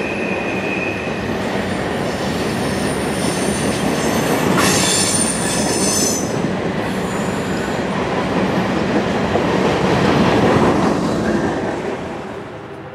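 Canadian National freight train's cars rolling past, steel wheels rumbling on the rail with high-pitched wheel squeal, strongest about five seconds in. The sound falls off near the end.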